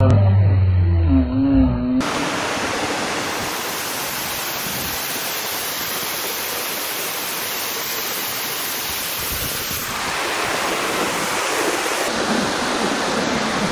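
A brief, loud pitched sound in the first two seconds, then the steady rush of a waterfall in full flow in the rain; the rush changes in tone about ten seconds in.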